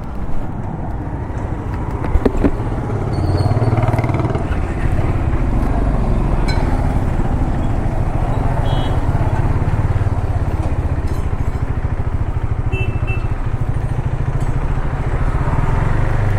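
Motorcycle engine running as the bike rides along, getting louder about three seconds in and then holding steady.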